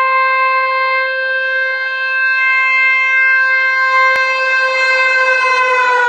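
Air horn of the WDAP-5 dual-mode locomotive sounding one long, loud, steady blast as the train approaches at speed. The pitch drops near the end as the locomotive passes close by.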